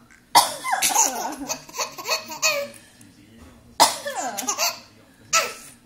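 A cough makes a baby burst into laughter, twice: a long giggling fit in the first half and a shorter one about four seconds in. Near the end there is one more short, sharp cough.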